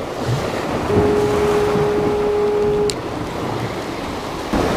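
Ocean surf washing over jetty rocks. A steady single-pitched tone starts about a second in, holds for about two seconds, and is cut off by a sharp click. The surf swells again near the end.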